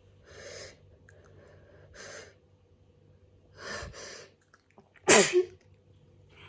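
A person's hay-fever sneeze: three catching, breathy inhales as it builds, then one loud sneeze a little after five seconds in.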